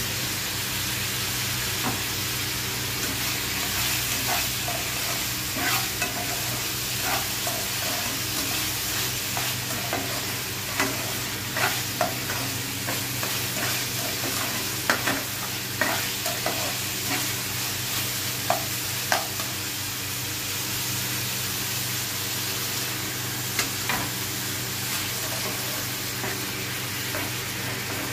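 Sliced onions sizzling in hot oil in a non-stick frying pan as a slotted metal spatula stirs them, with sharp scrapes and taps of the spatula against the pan scattered through, most of them in the middle of the stretch. A steady low hum sits underneath.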